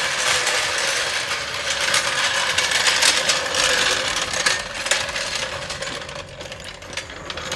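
A car jack being moved and set in place, a dense metallic rattling and clicking that fades over the last couple of seconds.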